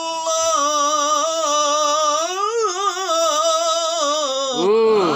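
A man's Quran recitation (tilawah) holding one long melismatic note with wavering ornaments, which swells, then arches and falls away near the end.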